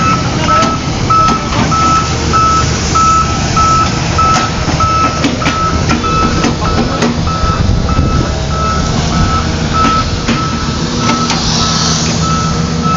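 Reversing alarm on a heavy construction machine beeping steadily, a little faster than once a second, over its diesel engine running, with scattered knocks of work on the site.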